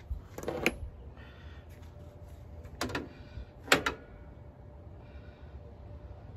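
Metal hand tools clinking and clanking in an engine bay during a spark plug change: a small cluster of clicks near the start, then two sharp clanks about three seconds in and just under four seconds in, the second the loudest.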